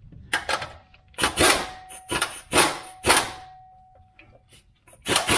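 Half a dozen short scrapes and knocks, spaced irregularly, as a manual transmission is shifted and lowered on a scissor-type transmission jack. A faint steady squeak-like tone runs under the middle strokes.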